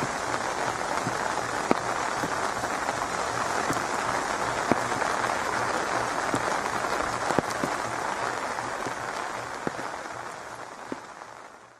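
Steady rain falling, an even hiss with scattered drop ticks, fading out over the last two seconds.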